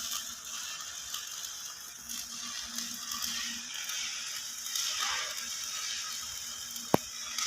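Electric arc welding on the bottom of a steel water tank: a steady crackling hiss, with one sharp click near the end.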